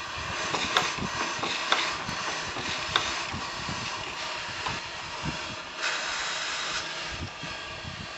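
Steady hiss of steam from a small steam engine's boiler as it raises pressure, with scattered metallic clicks and knocks. The hiss swells for about a second a little past the middle.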